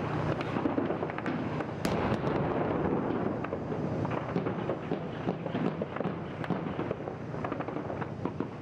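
BMP-2 infantry fighting vehicle driving off, its diesel engine running under a dense crackle of sharp cracks and clatter, with one louder crack about two seconds in.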